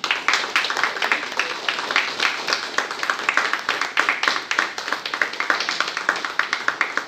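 A small group of people clapping, quick overlapping claps that keep up steadily.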